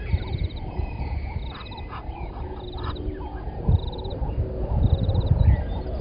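Early-morning bush ambience. A short high trill repeats about once a second, with other bird calls scattered around it. A steady low rumble runs underneath.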